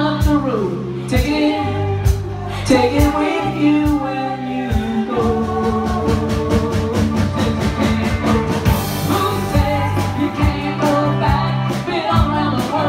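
A rock band playing a song: a singer over guitar, bass and drums with a steady beat.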